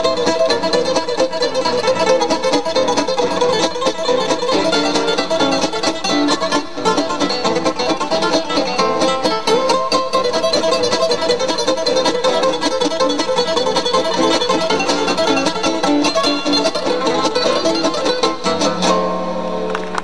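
Trio of acoustic guitars playing a tango, plucked melody over strummed chords, coming to rest on a held final chord near the end.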